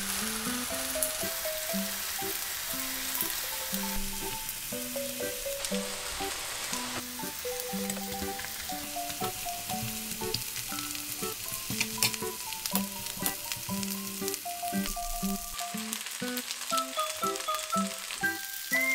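Thinly sliced pork belly sizzling as it fries in a hot nonstick pan, a steady crackling hiss, with a light background melody over it.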